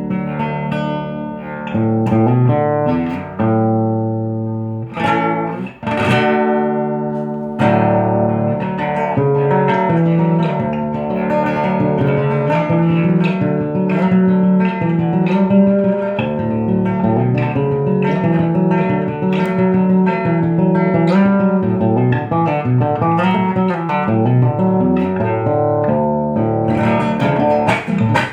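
Acoustic guitar (violão) set up to sound like a Brazilian viola caipira, plucked in a continuous melody over low bass notes. There is a short break and a single strummed stroke about six seconds in.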